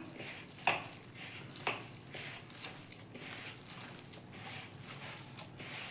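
Hand kneading minced mutton into a crumbly ground spice mix in a plastic bowl: soft, irregular squishing and pressing strokes, roughly one a second.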